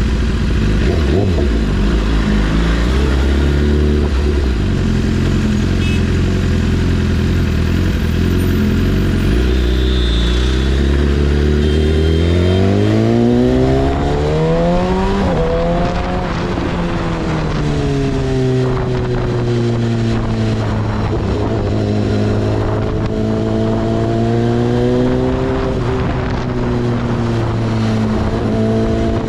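Motorcycle engine running on the move. It holds a low, steady note at first, climbs sharply about halfway through as the bike accelerates, then drops back and holds a steady, somewhat higher note.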